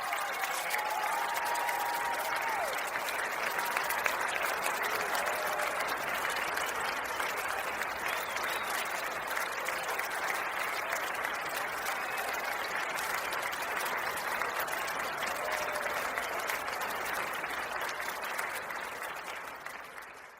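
Large audience applauding, with a few whistles in the first seconds; the applause fades out near the end.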